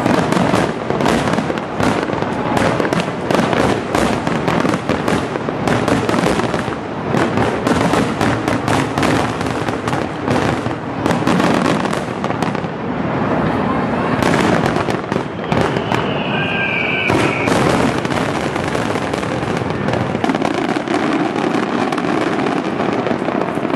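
Aerial firework shells bursting in a rapid barrage, dozens of booms and cracks in quick succession. The bursts thin out about halfway through, leaving a continuous noisy wash with scattered reports and a short falling tone about two-thirds of the way in.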